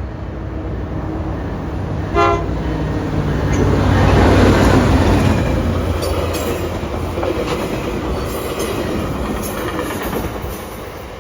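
Tri-Rail diesel commuter train: a short horn blast about two seconds in, then the train passing close with its engine rumble loudest around four to five seconds in. Its wheels click rhythmically over the rail joints, and the sound drops away near the end.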